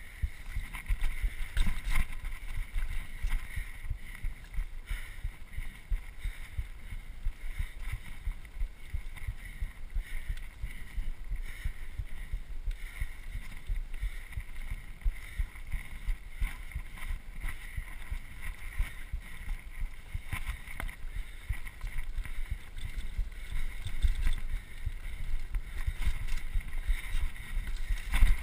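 Mountain bike riding fast down dirt singletrack, heard from a handlebar-mounted GoPro: wind buffeting the microphone, tyres rolling over the dirt and the bike rattling, with frequent jolts over bumps.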